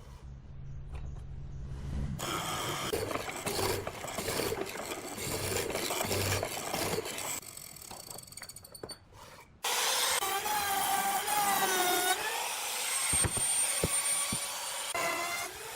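Wood being worked with tools: rubbing, sawing and rasping strokes on wood. About ten seconds in there is a sudden switch to louder cutting with a wavering whine.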